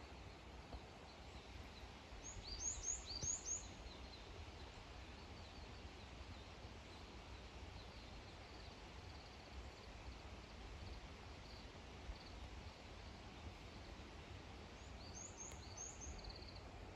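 A songbird singing a short phrase of quick, high, falling notes twice, about two seconds in and again near the end, with fainter calls between, over a low steady outdoor rumble.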